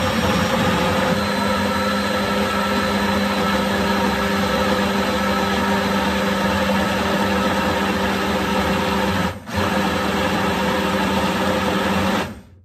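Personal blender motor running steadily, grinding dried prunes and apples into a thick jam. It dips briefly about nine seconds in and cuts off just before the end.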